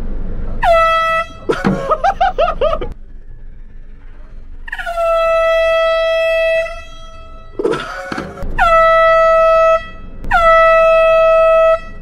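Air horn sounded in four blasts: a short one about half a second in, then three longer blasts of one to two seconds each from about five seconds in, each starting with a quick upward swoop in pitch. Voices come briefly between the blasts.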